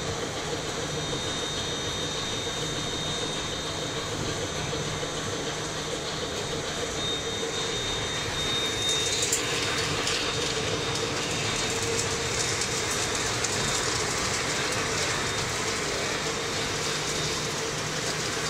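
Commercial hot-air popcorn machine running: a steady hum of motors and blower with rushing air. A faint high whine stops about eight seconds in, after which the noise grows a little louder and busier, with scattered clicks.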